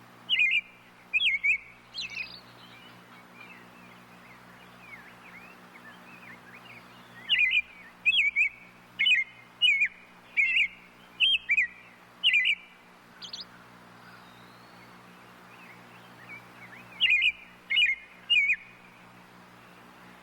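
Robin calling: loud, short, sharp calls in clusters, a few at the start, a quick run of about eight in the middle and three more near the end. Softer twittering comes between the clusters.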